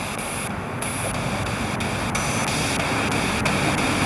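Spirit box sweeping through radio stations: a steady hiss of static whose texture shifts in short steps several times a second.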